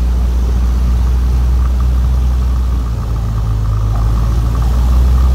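Cessna 182's piston engine and propeller, a steady low drone heard from inside the cabin as the plane rolls along the ground, the engine note shifting slightly about three seconds in.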